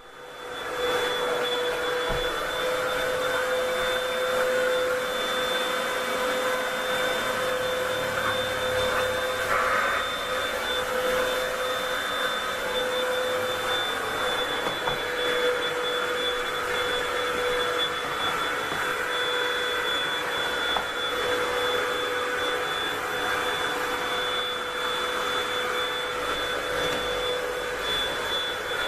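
Vacuum cleaner coming up to speed within the first second, then running steadily with an even rush of air and a steady high whine.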